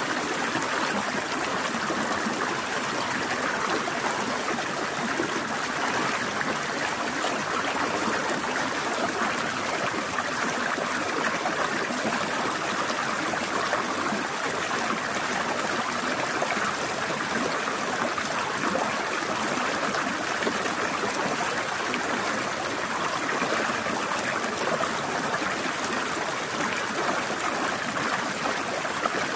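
Forest stream flowing and trickling at an even, unchanging level.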